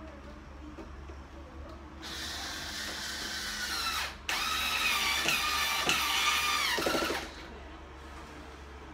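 Electric drill-driver running in two goes, about two seconds and then about three seconds with a brief stop between. It gives a steady motor whine that steps up a little in the second go and winds down as it stops, as it drives the screws that fix a built-in electric oven into its cabinet.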